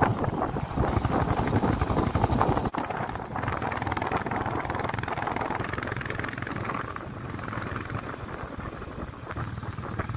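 Motorcycle engine running at steady road speed, mixed with wind rushing over the microphone.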